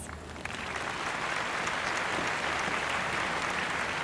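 An audience applauding, a dense steady clapping that swells about half a second in.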